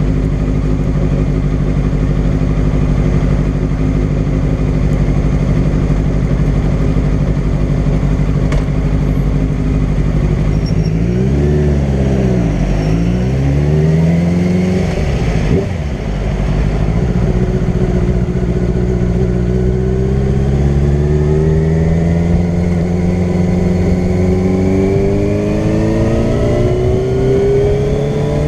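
Yamaha sport bike engine idling steadily, then pulling away: about eleven seconds in the revs rise and fall several times through quick gear changes, and near the end the engine note climbs steadily as the bike accelerates.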